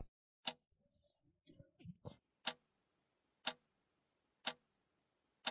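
Clock ticking, one sharp tick a second, as the second hand steps. A few fainter short sounds come about a second and a half in.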